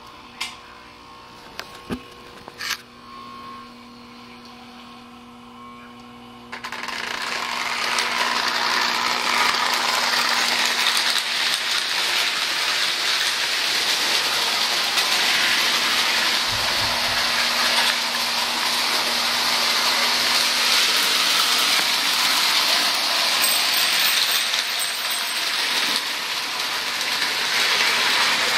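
Electric O-gauge toy train running on tinplate track: a dense, steady metallic clatter of wheels and gearing that starts suddenly about six and a half seconds in. Before it there is only a quiet hum and a few sharp clicks.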